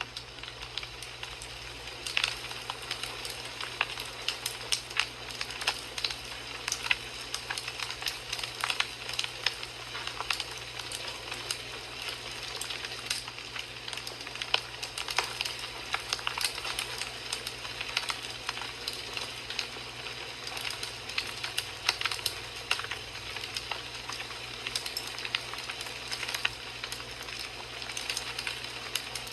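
Wood fire burning in a fireplace, crackling with frequent irregular pops and snaps over a steady hiss.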